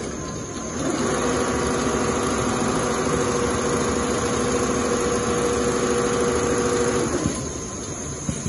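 Two-head Richpeace CNC pattern sewing machine stitching leather at speed: a steady mechanical running sound that starts about a second in and stops about seven seconds in.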